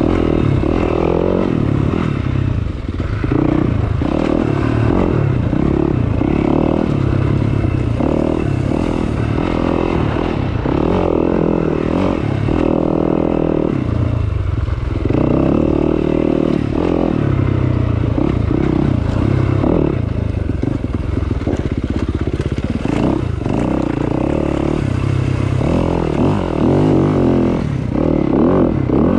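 Dirt bike engine running continuously on a rough trail, its note rising and falling as the throttle opens and closes.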